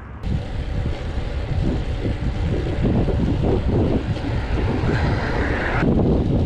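Wind buffeting the microphone of a handlebar camera on a moving road bike: an uneven low rumble. A higher hiss joins it for about a second near the end and cuts off suddenly.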